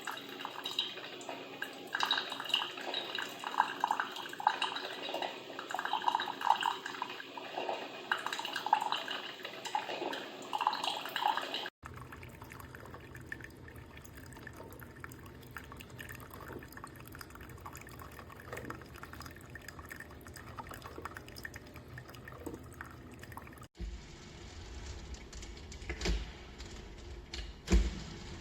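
Stainless steel Elite Gourmet percolator perking as the coffee brews, with irregular gurgling and bubbling. The sound changes abruptly about twelve seconds in to fainter bubbling over a low hum.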